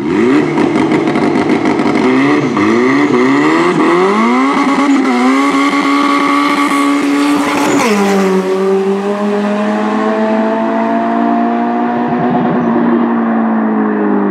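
A turbocharged Honda CRX and a 2017 Kia Stinger launching hard from a standing start, their engines revving up and dropping back several times through the gear changes. About eight seconds in they pass close by with a sudden drop in pitch, then keep running at full throttle as they pull away.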